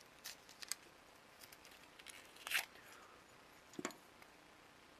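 Plastic parts of a card terminal's card-slot assembly being pried and pulled apart by hand: a few scattered small clicks and light scrapes, the sharpest a little past two and a half seconds and just before four seconds.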